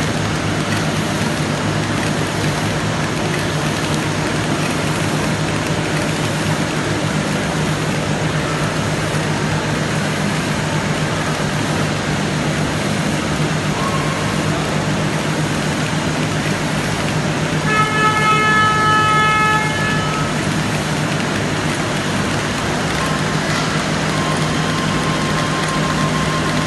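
Horizontal flow-wrap diaper packaging machine running, a steady, dense mechanical noise with a low hum. About eighteen seconds in, a pitched tone sounds for about two seconds.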